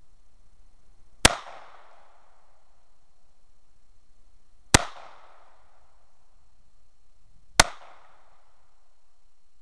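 Three shots from a Rock Island Armory Model 206 snub-nose .38 Special revolver, fired a few seconds apart, each a sharp crack trailing off in a short echo.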